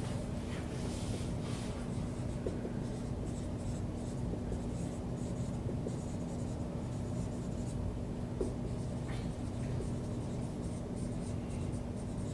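Dry-erase marker writing on a whiteboard: a run of short, scratchy strokes, over a steady low hum.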